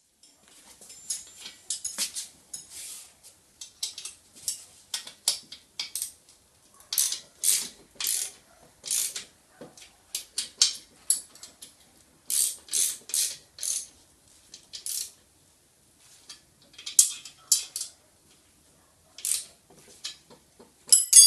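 Socket ratchet wrench clicking in short runs, stroke after stroke, as bolts are tightened, with a louder clink right at the end.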